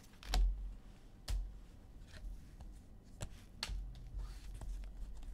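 Handling noise of trading cards being gathered and set down on a table: scattered soft clicks and several dull thumps against the table.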